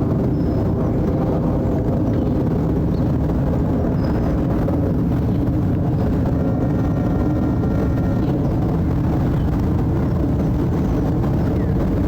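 Jet airliner passing overhead: a steady low rumble at an even level.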